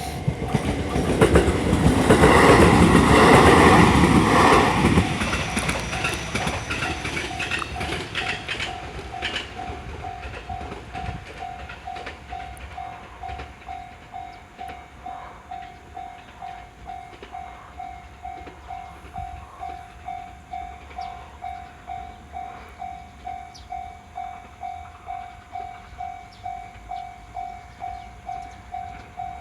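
A train passes over a Japanese level crossing, loudest about two to five seconds in and dying away by about ten seconds. Under it the crossing's warning bell keeps dinging about twice a second.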